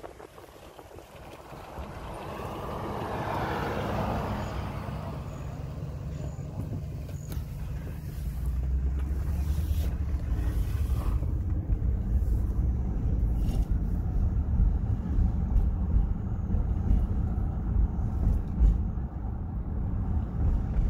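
Pickup truck heard from inside the cab as it drives slowly: a low engine and road rumble that grows louder about eight seconds in, with wind on the microphone.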